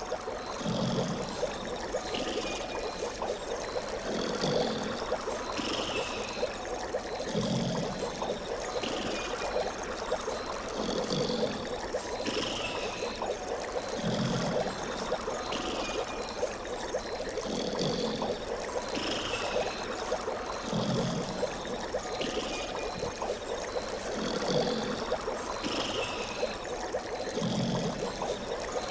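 A bird's short falling call repeats every few seconds over a steady rushing, water-like noise. A low sound comes in between the calls, so that something sounds about every one and a half seconds in an even, repeating pattern.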